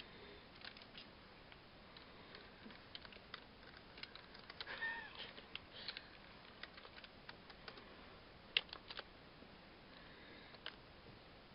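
Keys of a Dell computer keyboard clicking at irregular intervals as a dog's paw presses on them, with a brief high whine about five seconds in.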